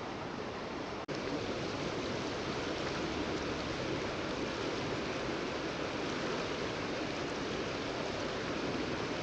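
Steady rush of flowing river water, an even unbroken noise that cuts out for an instant about a second in.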